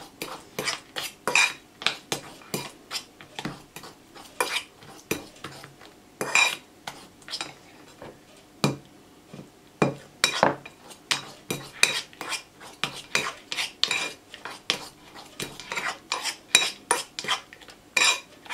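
Metal spoon scraping and clinking against a ceramic bowl in short, repeated strokes as banana is mashed.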